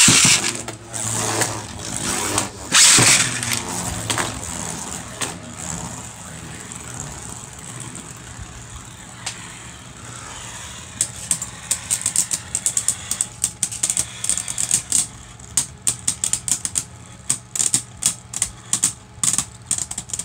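Two Beyblade Burst spinning tops launched into a plastic stadium: loud launch and clashing in the first few seconds, then a steady whir as they spin, and from about eleven seconds on rapid, sharp clacking as the tops repeatedly knock together.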